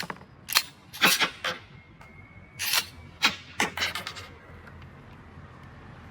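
Sharp metallic clicks and clacks of a Smith & Wesson 9mm pistol being handled, its parts snapping together as it is worked, about a dozen in the first four seconds before they stop.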